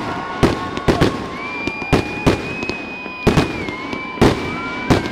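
Fireworks display going off at close range: a rapid run of loud bangs, about two a second, over steady high whistling tones from whistling fireworks.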